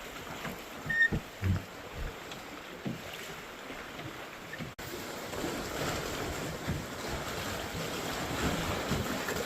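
Wind buffeting the microphone and water rushing aboard a small open boat, with a few low thumps in the first half. After an abrupt cut, a steadier, slightly louder rush of wind and water.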